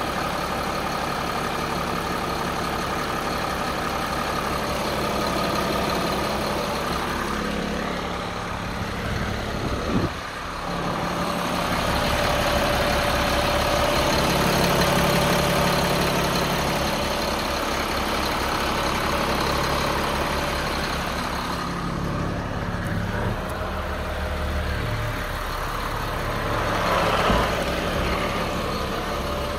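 Caterpillar C7 inline-six diesel in a Freightliner M2 truck idling steadily, with one brief knock about ten seconds in.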